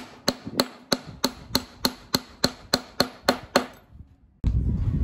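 A hammer driving U-nails (poultry-netting staples) into a wooden frame, with quick, even strikes about three a second, a dozen or so in all, stopping just before the end. Near the end, steady low background noise comes in abruptly.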